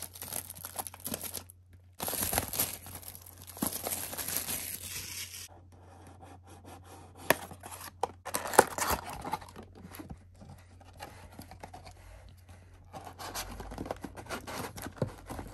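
Box-opening knife cutting and tearing the plastic shrink wrap off a cardboard trading-card hobby box, two long stretches of tearing in the first five seconds or so. Then lighter crinkling of plastic and cardboard handling with a few sharp clicks as the box is opened.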